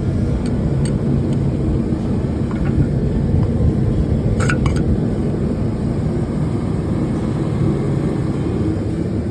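A steady low mechanical drone, with a few light clicks about half a second in and again around the middle.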